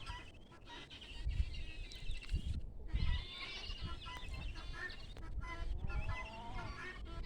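Guineafowl calling, many short harsh calls repeated and overlapping, with low rumbling noise underneath.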